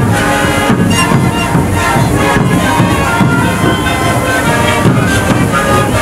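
Sikuri ensemble playing live: many sikus (Andean panpipes) sounding together in dense, breathy chords over the steady beat of large bombo bass drums.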